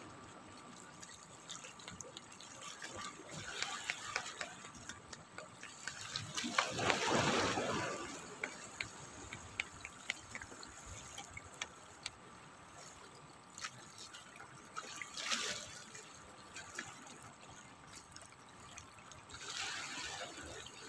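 Small sea waves lapping and washing against the rocks of a breakwater, with a louder wash about seven seconds in and again near the end, among small clicks and trickles of draining water.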